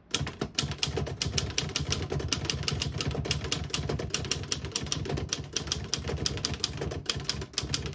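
Keys of a 1923 L.C. Smith No. 8 manual typewriter being typed in a steady run, the typebars striking the platen several times a second as a sentence is typed; the keys type cleanly without skipping or sticking.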